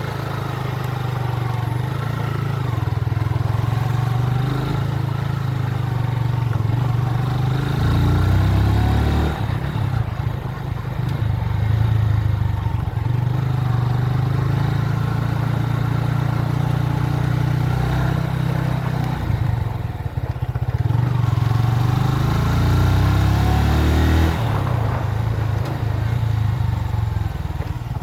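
Motorcycle engine running steadily under way, its note rising and shifting as the bike changes speed about eight seconds in and again about twenty-four seconds in.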